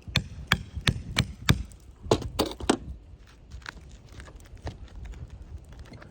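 Quick run of sharp knocks from a tool being worked against an asphalt shingle to pull roofing nails: about five strikes roughly three a second, a tight cluster of knocks about two seconds in, then lighter taps.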